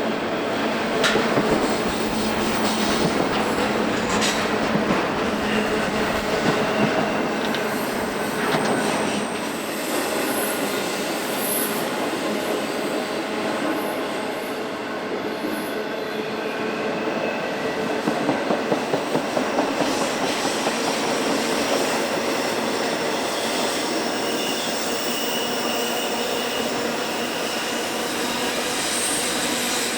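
Freight train rolling past, a steady rumble of rail cars with high wheel squeal and the clickety-clack of wheels over rail joints, which beats faster and louder a little past halfway.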